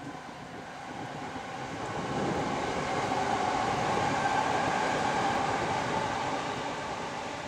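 A passing train: a rumble with a steady whine that swells about two seconds in, holds for a few seconds, then begins to fade.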